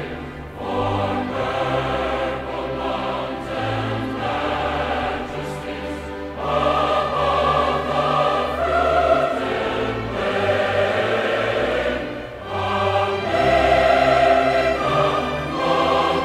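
Background choral music: a choir singing slow, held chords that change every second or two.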